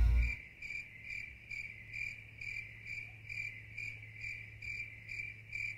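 Cricket chirping steadily, about two high chirps a second, over a faint low hum.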